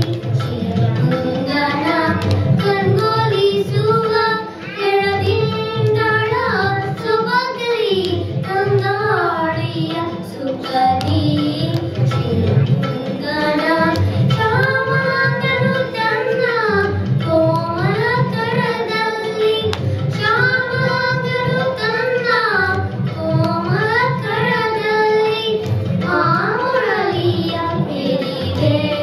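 Young girls singing a Kannada children's song in Carnatic style, the melody gliding and ornamented, with a low drum accompaniment pulsing underneath.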